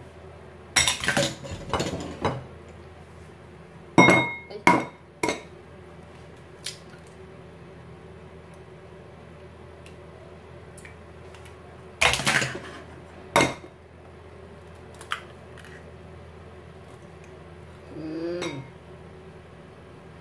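Short clusters of glassy clinks and knocks on glass mixing bowls as a wire whisk is tapped against a bowl and eggs are cracked on a bowl's rim. There are three main bursts of a few sharp knocks each, some with a short ring, and a single click later on.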